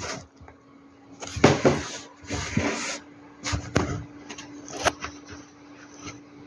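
A series of knocks and bumps, about six of them, with rustling in between, over a steady low electrical hum.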